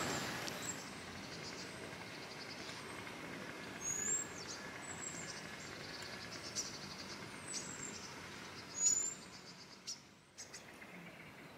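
Birds chirping, a handful of short, high calls and quick sweeps scattered through, over a steady faint outdoor background noise.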